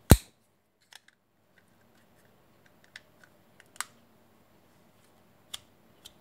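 Hard plastic housing halves of a plug-in USB charger being pressed and snapped back together by hand. One loud sharp snap at the start, then scattered lighter clicks and taps, with a sharper click a little before the middle.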